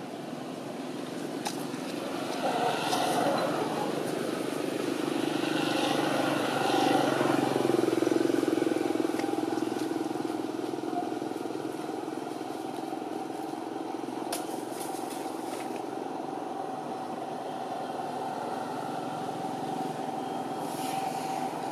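A motor vehicle's engine hum that grows louder over the first eight seconds, then eases off and holds steady, with a few faint clicks.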